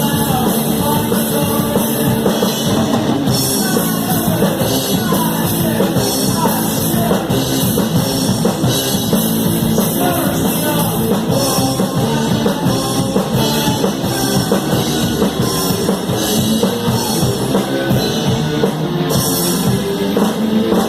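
Rock band playing live, heard from right beside the drum kit, so the drums and cymbals stand out loud and close over the rest of the band.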